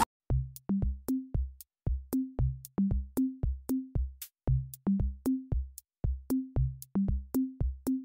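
Electronic background music: a sparse drum-machine beat of short, low, pitched drum hits, about three a second.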